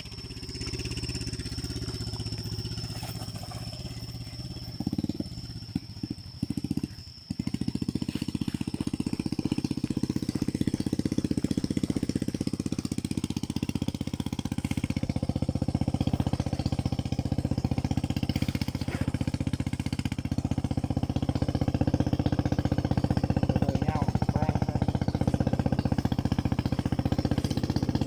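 Small dirt-bike engine running under load with a steady rapid firing beat. It falters and drops out briefly around six seconds in, then picks up and runs on louder.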